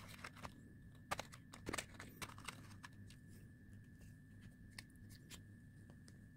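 Faint, scattered clicks and light handling noises of small parts, a wire being worked into a crimp-type spade connector, mostly in the first few seconds. A faint steady high tone runs underneath.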